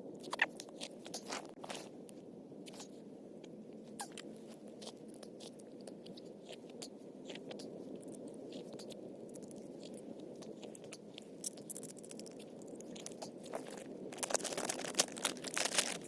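Scattered crunches and clicks over a steady low rushing sound, building into a dense run of crunching near the end.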